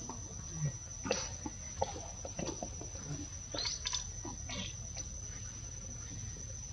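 Outdoor ambience: a steady high whine under scattered faint clicks and a few short, high rising chirps, the clearest pair a little over halfway through.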